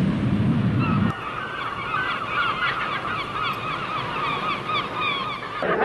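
Sea surf washing for about the first second, then a flock of birds calling, many short cries overlapping.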